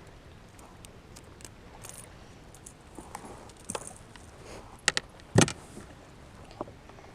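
Scattered light clicks, rattles and knocks from handling a freshly landed bass and fishing tackle in a kayak, with two sharper knocks about five seconds in.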